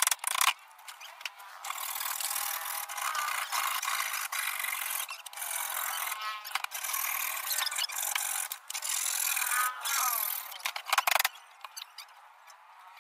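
Hand rubbing strokes of a small tool along the edge of a plywood cabinet, coming and going in a run of scraping passes. A few sharp knocks near the start and again near the end.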